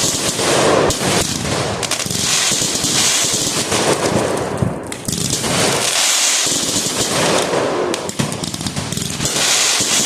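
A dense, rapid run of fireworks bangs and crackles going on without a break, with short lulls about five and eight seconds in.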